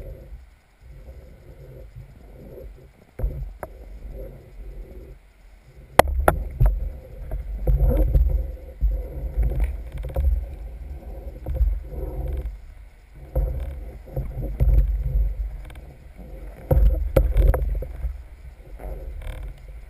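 Muffled underwater rumble of water moving around a speargun-mounted camera's housing, swelling and fading every couple of seconds. A sharp click sounds about six seconds in, with a few fainter knocks.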